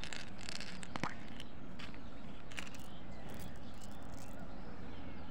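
A few faint clicks and light rattles of a small plastic toy container being handled and opened, with one sharper click about a second in, over a steady background hiss.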